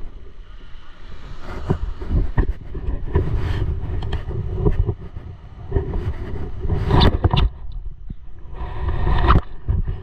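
Strong wind buffeting the camera's microphone: an uneven low rumble that surges in gusts, loudest about seven and nine seconds in.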